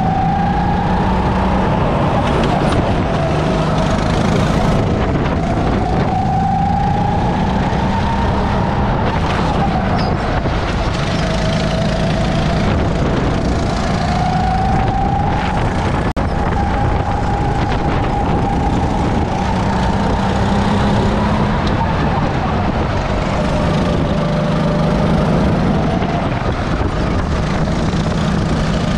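Go-kart engine heard from the driver's seat, its pitch climbing and falling several times as the kart speeds up and slows through the corners, over a constant rush of noise.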